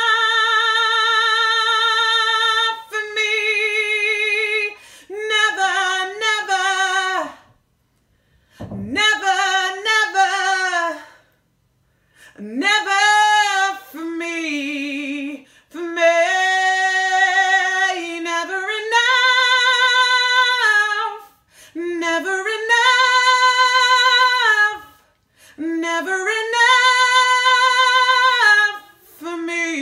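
A woman's solo voice singing unaccompanied: long held notes with vibrato and gliding runs, broken by short pauses for breath between phrases.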